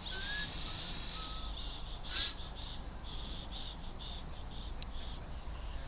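Wild birds calling: a few short whistled notes over a high chirping trill that breaks into quick pulses after about a second and a half.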